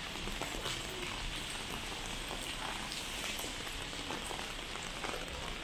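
Heavy rain falling steadily: an even hiss dotted with many small, sharp drop ticks.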